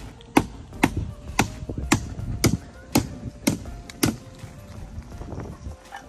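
Hand hammering, about two blows a second, that stops about four seconds in.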